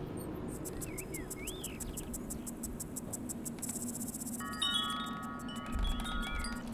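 Metal tube wind chime ringing: several tones struck together about four and a half seconds in, each holding its pitch as it rings on.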